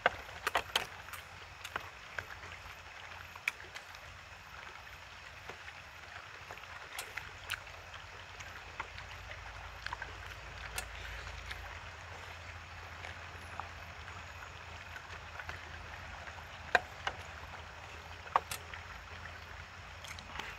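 Chopsticks and spoons clicking and tapping against plastic takeout containers while eating. The clicks are scattered, with a cluster in the first second and two sharper ones near the end. Under them runs a steady outdoor hiss with a low wind rumble on the microphone.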